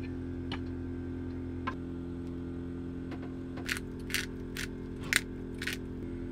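A few light clicks and then five short, sharp strokes about half a second apart, handling sounds from preparing and serving a salad, over a steady mechanical hum.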